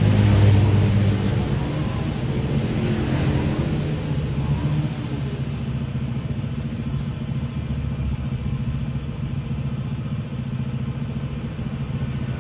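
An engine running steadily with a low, even pulse, louder for a moment about half a second in, then settling.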